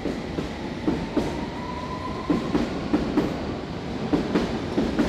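London Underground train running through the station: a steady rumble with wheels clattering irregularly over the rails, and a brief high squeal about a second in.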